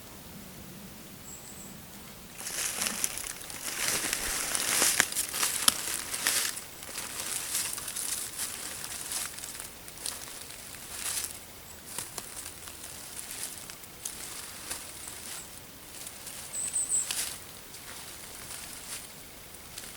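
Intermittent rustling, heaviest a few seconds in and then coming and going, with two brief high chirps from a small bird.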